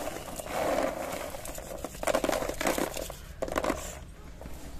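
Roasted peanuts being rubbed by hand in a bamboo winnowing tray to loosen their papery skins: irregular rustling and clicking as the nuts rub and knock together against the woven tray.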